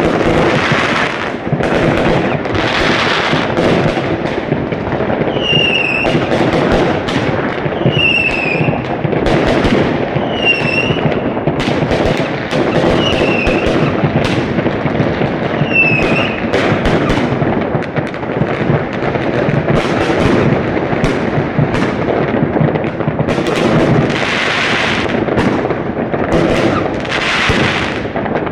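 Fireworks going off without pause: a dense crackle of many bangs and pops. In the middle a short high chirp sounds five times, a couple of seconds apart.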